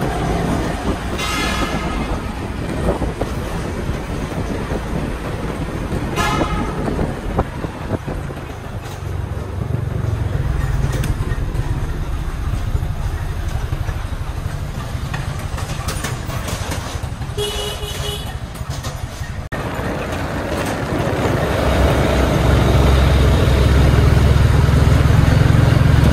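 A Hyundai crane truck's engine runs along the road, growing louder over the last few seconds as the truck comes close alongside. A vehicle horn gives three short toots over the first eighteen seconds, one about a second in, one about six seconds in and one past the middle.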